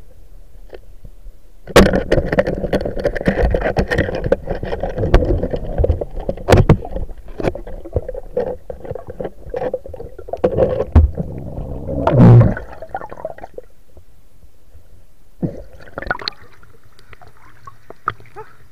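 Underwater rushing, splashing and knocking with sharp clicks, heard through a submerged camera as a spearfisher struggles with a speared fish among rocks. It starts suddenly about two seconds in, with a heavy thump near twelve seconds, and dies down after about thirteen seconds, leaving a few faint knocks.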